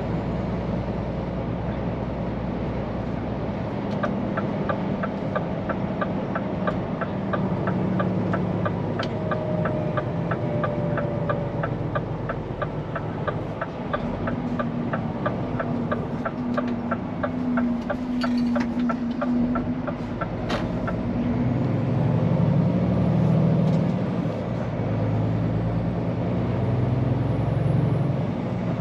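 Inside the cab of a Scania P410 truck on the move: steady diesel engine and road noise, with an evenly spaced ticking of about three ticks a second, typical of the turn-signal indicator, from about four seconds in until about twenty seconds in. The engine grows louder near the end.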